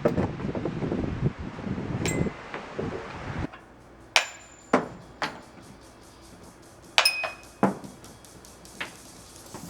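Sharp clinks of glass, about six of them spaced irregularly, several leaving a brief ringing tone. They follow a rumbling noise that cuts off abruptly about three and a half seconds in.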